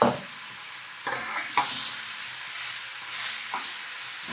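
Apple pieces sizzling in butter caramel in a stainless steel frying pan, stirred with a spatula. The spatula or pan knocks sharply at the start, again a few times about a second and a half in, and once more near the end.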